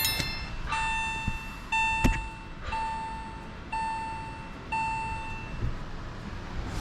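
Electronic warning beeper sounding five times, one long beep about every second, each a single steady tone, then stopping.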